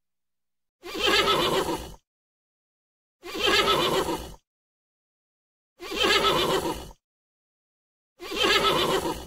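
Horse whinnying: the same short neigh four times, about every two and a half seconds, with dead silence between.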